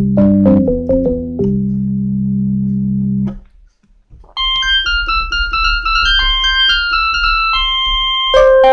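Kawai FS660 portable keyboard playing built-in voices. A low melody ends in a held chord, then it goes quiet briefly as the voice is changed. From about four and a half seconds in, a quick run of high notes plays on the next voice, and a louder, lower line comes in near the end.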